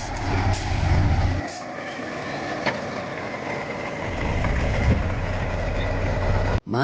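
Large truck engine running, a low rumble under a steady hiss; the rumble drops away about a second and a half in and comes back about four seconds in, with a sharp click near the middle, then cuts off just before the end.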